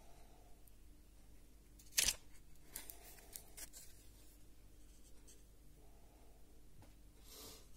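Fingers handling a smartphone and its loose clear plastic screen film: a sharp click about two seconds in, a few lighter clicks just after, and a brief soft rustle near the end.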